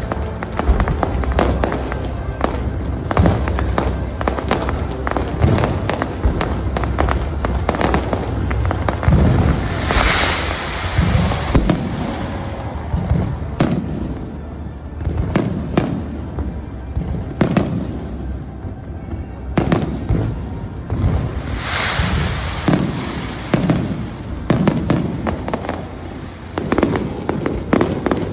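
Large fireworks display: many bangs and booms in quick, irregular succession, with two longer crackling hisses about a third and three quarters of the way through.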